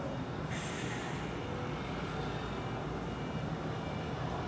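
Steady low background rumble and hum, with a short burst of hiss about half a second in.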